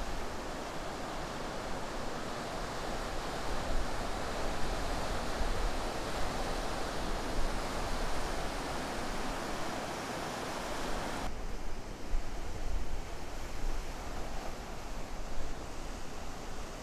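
Ocean surf, waves breaking and whitewater washing, a steady noisy rush. About eleven seconds in the sound changes abruptly to a duller, less hissy rush.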